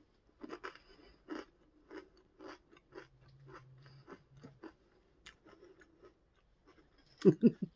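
A person chewing crunchy jalapeño cheddar potato skin snack chips: a run of crisp crunches, two or three a second, that thins out after about five seconds.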